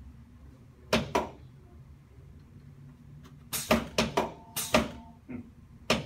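Sharp clicks and knocks during a hands-on chiropractic adjustment of the lower back on a treatment table: two close together about a second in, then a quick run of about six from halfway through, and one more near the end.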